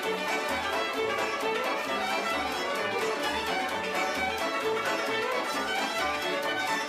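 Background music led by a violin over a steady beat and bass line.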